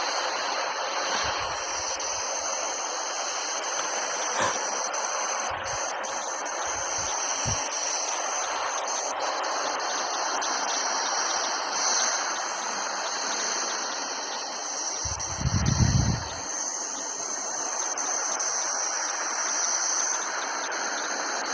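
Steady hissing noise of a spacecraft recording of space converted into sound, with a few faint low knocks in the first half and a short low rumble about three-quarters of the way through.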